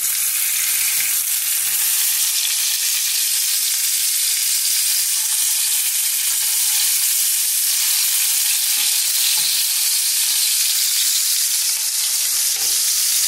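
Beef patties frying in hot coconut oil in a pan, a steady sizzle.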